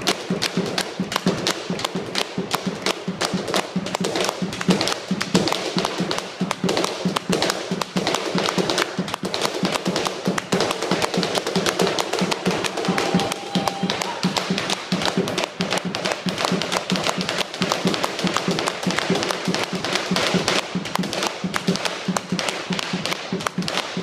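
Malambo zapateo: boot heels and soles stamping and tapping fast on a wooden board, over a steady beat on a bombo legüero drum struck with sticks.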